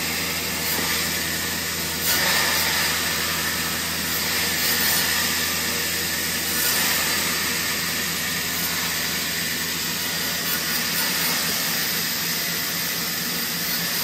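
Band saw running and cutting wood through a home-made guide template, sliced off into small crate pieces: a steady motor hum under an even sawing hiss, a little louder from about two seconds in.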